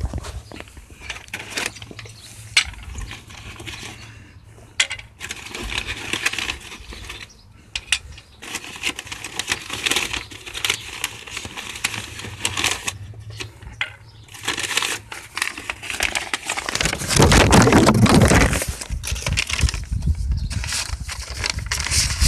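A folded Centipede sawhorse being handled and pulled from its nylon carry bag: its plastic hubs and steel legs clink and rattle in many short knocks, with the bag rustling. Near the end, a loud low rush of wind buffets the phone's microphone for a couple of seconds.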